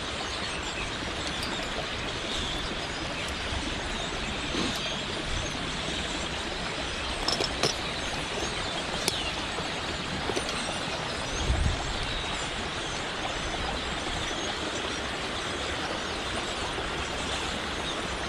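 Steady rush of water running through a rain-swollen dam, with a few sharp metallic clicks and a dull knock partway through as a tripped trap is handled and reset.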